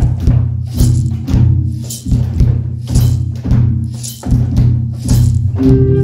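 Recorded music with a steady percussive beat over a low bass line; a sustained melody comes in near the end.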